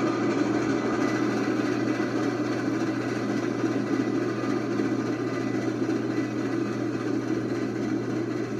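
Passenger train hauled by steam locomotive Southern 4501 rolling by, a steady rumble.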